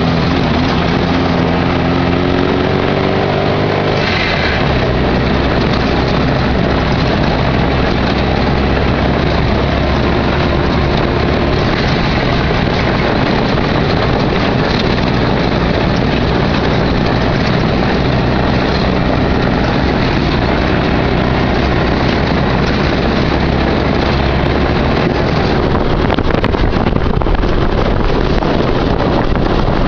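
Off-road vehicle's engine, heard from inside the cab, rising in pitch over the first few seconds as it accelerates. It then runs steadily under the rumble and rattle of driving over rough, rocky ground.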